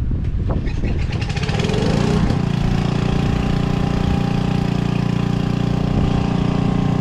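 A motor speeds up with a rising whine between one and two seconds in, then runs at a steady pitch.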